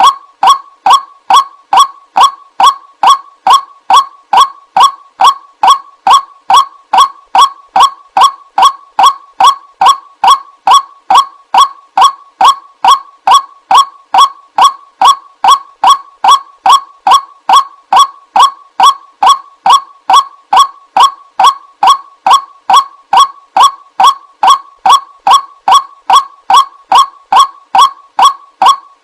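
White-breasted waterhen call used as a bird lure: a loud, honking 'kwak' note repeated evenly about two and a half times a second without a break.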